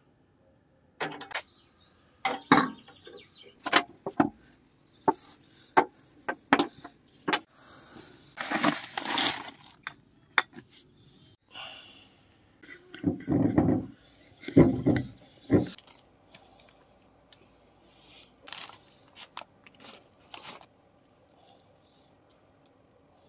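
Kitchen handling sounds: a string of clicks, clinks and knocks of utensils, rustling of a paper bread wrapper, and a knife working through a loaf and over a slice of bread.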